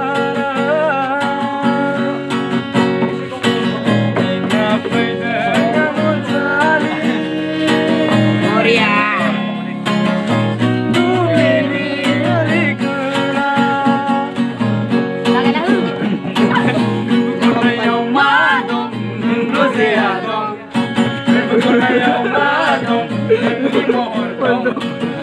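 Acoustic guitar strummed to accompany young male voices singing a song together.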